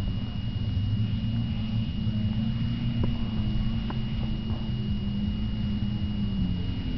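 Škoda 110's rear-mounted four-cylinder engine running as the car drives, a steady low drone whose pitch steps down about six seconds in.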